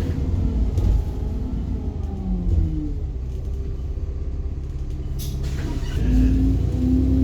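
Alexander Dennis Enviro bus engine running with a low rumble, its pitch falling over the first few seconds. A short hiss comes about five seconds in, then the engine runs louder and steadier near the end.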